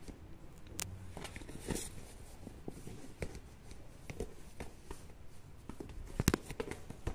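Rustling and small knocks of a fabric handbag being handled and hung back up on a shop display, with a sharper knock about six seconds in.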